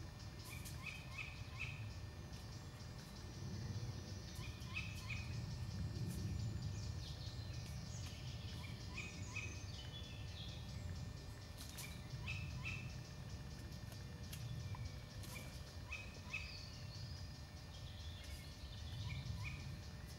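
A bird calling short, high chirps in clusters of two to four, repeated about every three to four seconds, over a low steady rumble.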